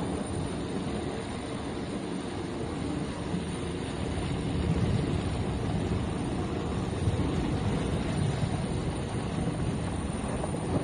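Helicopter overhead during a hoist rescue, its rotor and engine giving a steady low rumble that grows a little louder partway through.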